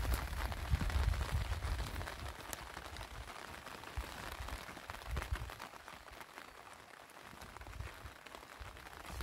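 Rain falling steadily, with scattered individual drops ticking. A low rumble in the first two seconds fades out.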